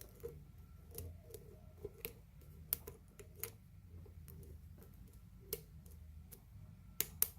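Lock pick and tension wrench working in a pin-tumbler padlock: faint, irregular metallic clicks and ticks as the pins are lifted and set under tension, with a few sharper clicks near the end.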